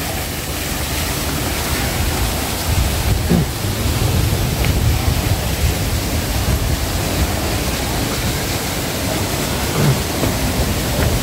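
Steady rushing noise with a heavy low rumble, even throughout and with no distinct events.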